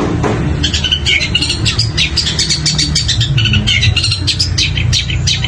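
Long-tailed shrike (cendet) singing a fast, continuous run of short sharp chirps and rattling trills, mimicking other birds' calls such as sparrows and woodpeckers. A steady low hum runs underneath.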